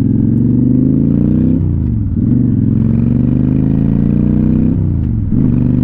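Honda Shadow Spirit 750's V-twin engine accelerating, heard from the bike. Its note climbs, falls at an upshift about a second and a half in, climbs again, and falls at a second upshift near the end before holding steady.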